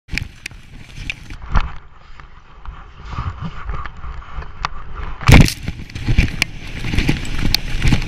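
Skis scraping and chattering over packed snow at speed, with wind rumbling on the camera microphone and a few sharp clicks. A loud knock comes about five seconds in.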